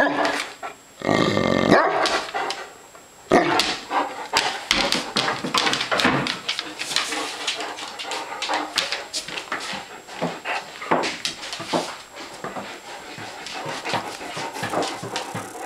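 Great Danes barking in excited calls: a long, loud call about a second in, then a steady run of shorter barks and yips. They are eager for food.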